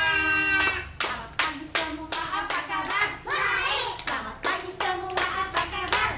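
Hand clapping in a steady beat, about three claps a second, along with a sung children's song.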